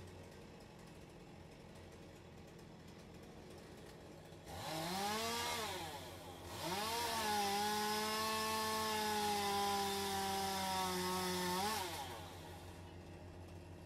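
Chainsaw revving: a short burst about four seconds in, then held at high revs for about five seconds, the pitch sagging slightly as it cuts into a yew branch. It ends with a quick rev and drops away near the end.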